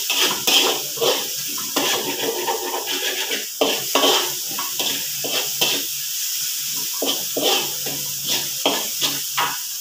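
Metal spatula scraping and clinking against a steel wok in repeated irregular strokes as food is stir-fried, over a steady sizzle of frying.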